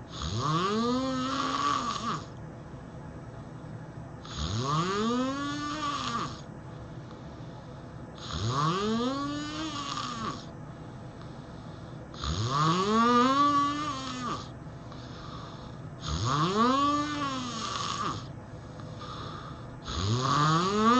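A person snoring: six long snores, one about every four seconds, each about two seconds long. Each snore rises in pitch and then dips slightly at the end, with a hiss on top.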